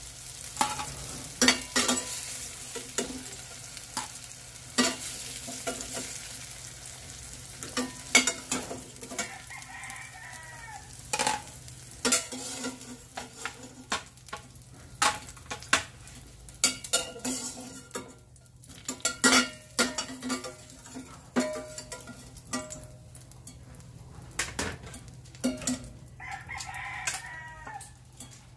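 Slotted metal spatula scraping and clacking against a stainless steel frying pan as fried tofu cubes are lifted out of hot oil, with the oil sizzling, most strongly in the first few seconds. A rooster crows twice, about ten seconds in and again near the end.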